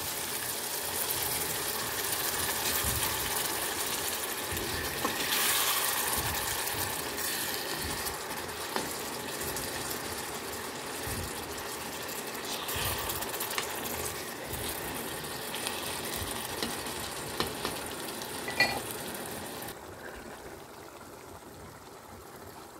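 Onion, tomato and parsley sauce sizzling and bubbling in a stainless steel frying pan, a steady hiss with a few clinks of a plastic spatula against the pan as it is stirred. The hiss drops off sharply about twenty seconds in.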